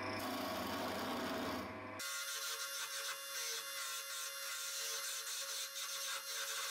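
Wood lathe running while a hand-held turning tool cuts a spinning wooden handle blank: a steady scraping hiss of the cut over the lathe motor's steady tone. About two seconds in the low hum drops out suddenly and the scraping dominates.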